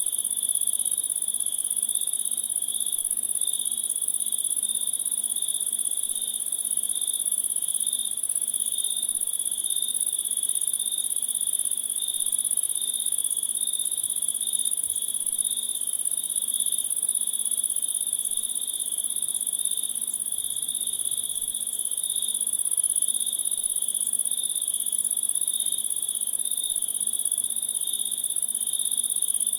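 Chorus of crickets and other insects: a continuous very high-pitched buzz over a steady, pulsing cricket trill, with no break.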